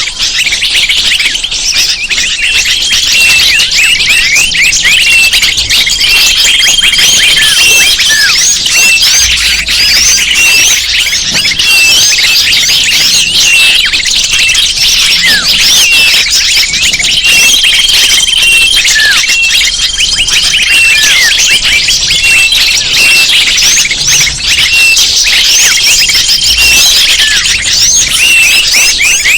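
Bird-lure recording of a dense chorus of many small birds chirping and twittering over one another without pause, with a held high whistle returning every few seconds.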